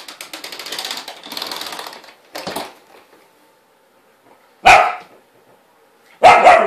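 A vacuum cleaner rattles for about two seconds and then stops. An 11-week-old German Shepherd puppy then barks at the vacuum: a short sound about two and a half seconds in, followed by a single loud bark near the middle and another near the end.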